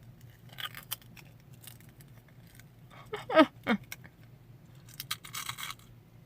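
Crispy Munchos potato chips being crunched and the chip bag crinkling in short bursts. About halfway through come two brief sounds that fall in pitch, the loudest moment.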